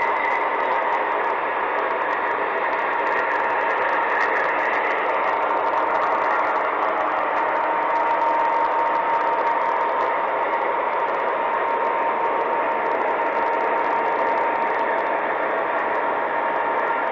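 MTH O gauge model diesel locomotives, a Conrail RS-11 and a Chessie Trainmaster, running on three-rail track: a steady mechanical rumble with a constant whine.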